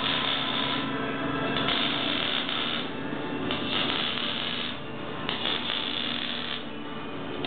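Electric arc welding: the arc crackles and hisses in runs of about a second with short pauses, four times, as short stitch welds are laid on a truck's steel frame.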